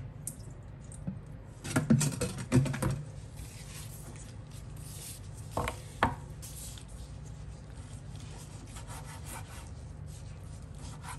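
Chef's knife cutting raw beef liver into chunks on a wooden cutting board: a quick run of knocks of the blade on the board about two seconds in, two more about six seconds in, and softer rubbing and rustling of gloved hands on the wet liver in between. A steady low hum runs underneath.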